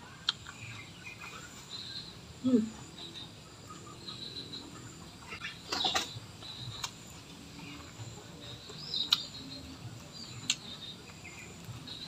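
Eating sounds: scattered sharp lip smacks and chewing clicks while eating with the hands, with a brief low gliding sound about two and a half seconds in. Short high chirps repeat in the background throughout, typical of small birds.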